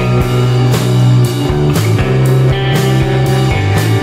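Background rock music with sustained guitar and bass notes over a steady drum beat, about two cymbal hits a second.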